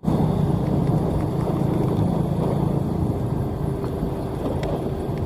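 Sakai asphalt paver's diesel engine running steadily as the machine travels, a low even hum with a few faint clicks.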